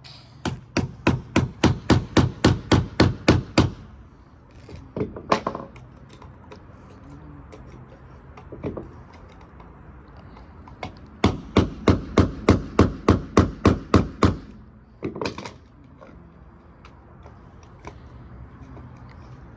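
Hammer striking a hard rock in two rapid runs of blows, about four a second, each run lasting about three seconds, with a few single knocks between them. The rock is not breaking open.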